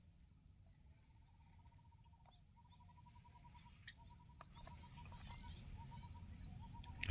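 Quiet outdoor ambience with faint wild animal calls: a high chirping repeated in short groups, and from about a second in until near the end a lower, rapid pulsing trill.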